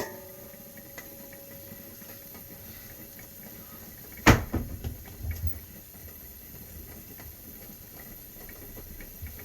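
Kitchen bowls and a cupboard being handled: a clink that rings briefly at the start, a sharp knock about four seconds in followed by a few dull thumps, and another knock at the very end.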